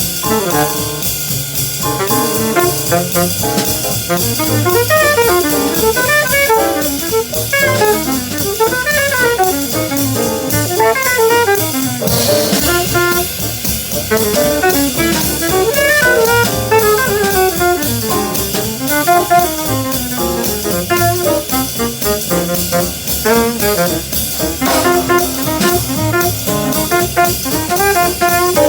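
Jazz band playing: a saxophone and other brass lead busy, fast-moving melodic lines over a drum kit.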